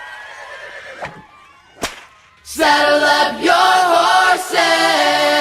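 Two sharp cracks close together, then a group of voices singing loudly together in chorus.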